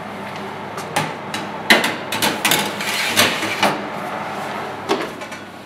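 Metal baking sheet clattering and knocking against the oven's rack and runners as it is pushed in: a string of sharp knocks, thickest in the middle, with one more near the end, over a faint steady hum.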